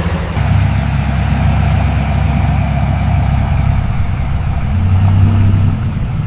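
Lamborghini Huracán's V10 engine idling steadily just after being started, with a brief swell in level about five seconds in.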